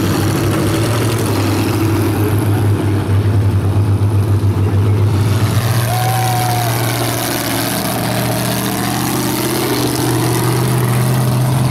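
Mega truck engine running at a lumpy, pulsing idle, then settling into a steadier, slightly higher note as the truck drives off across gravel.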